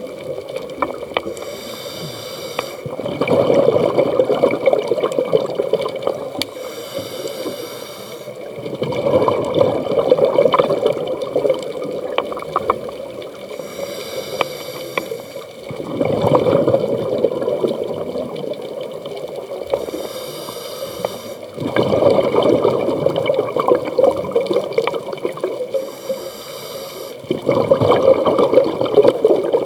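A scuba diver breathing underwater through a regulator: a short hiss on each inhale, then a few seconds of exhaled bubbles gurgling out, in a steady cycle about every six seconds, five breaths in all.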